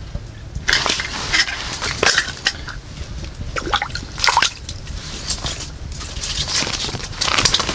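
Water splashing and dripping in uneven spells, with small clicks, starting about a second in.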